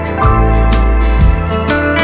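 Background music: a guitar-led instrumental with a bass line and a steady beat.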